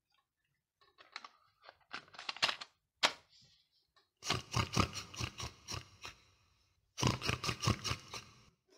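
A cassette tape being handled and loaded into a small black plastic handheld cassette player: scattered plastic clicks and rattles, a sharp snap about three seconds in, then two longer runs of busy clicking as the player is fiddled with.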